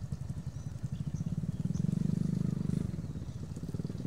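A small engine running with a steady low chug, growing louder for about a second midway and then easing back.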